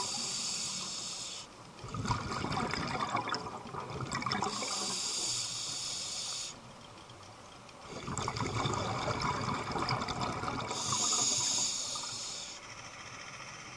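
Scuba diver breathing through a regulator underwater, over about two full breaths. Each inhale is a high hiss through the demand valve. Each exhale is a loud bubbling rush from the exhaust.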